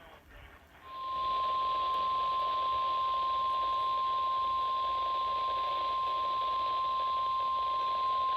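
NOAA Weather Radio warning alarm tone: one steady high beep over receiver static, starting about a second in and holding on. It is the signal that a warning broadcast is about to be read.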